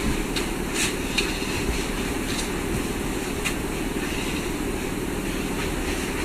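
Steady low rumbling noise with a fainter hiss above it, like a fan or ventilation running, with a few faint clicks in the first couple of seconds.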